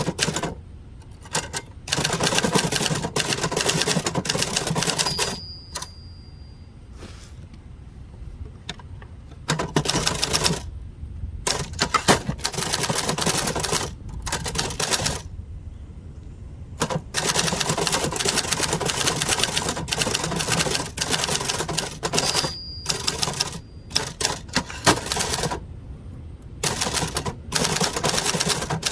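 Adler Gabriele 25 manual typewriter being typed on in runs of rapid key strikes with short pauses between them. A short bell ring sounds twice, about five seconds in and again past twenty seconds: the margin bell warning of the line's end.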